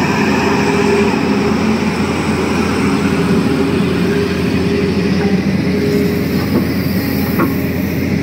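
Tata Hitachi Zaxis 220 excavator's diesel engine running steadily under working load as the machine swings and works its bucket, with a few faint knocks near the end.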